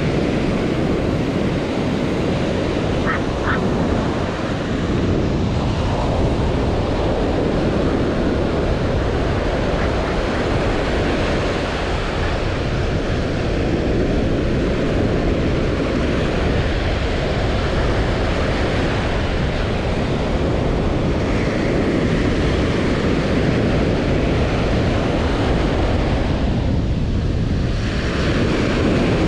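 Surf: small waves breaking and washing up a sandy beach, a steady rush of water.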